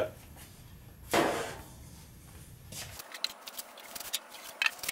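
Handling sounds as a thin sheet-metal tank cover is lifted off a wooden locomotive body: a brief scraping rush about a second in, then scattered light clicks and taps, sharpest near the end.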